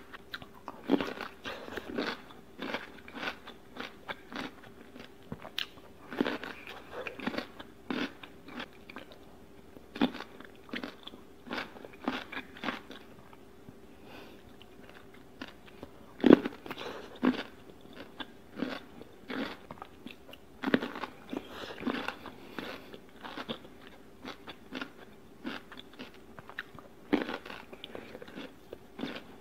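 Biting and chewing whole pickled cucumbers: crunches come in irregular clusters, with a brief lull and the loudest crunch just past halfway.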